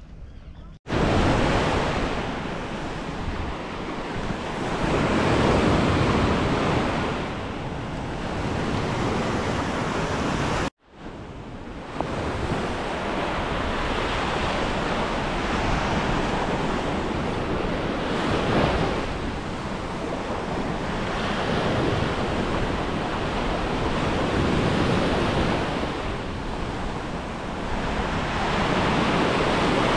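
Ocean surf breaking and washing up a sandy beach, swelling and easing every few seconds, with wind buffeting the microphone. The sound cuts out for a moment just under a second in and again about eleven seconds in.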